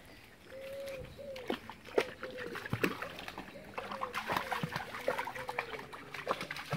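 Springer spaniel splashing as it wades through a shallow stream, with many short sharp splashes. Over it, an animal's short, slightly falling calls repeat about every half second.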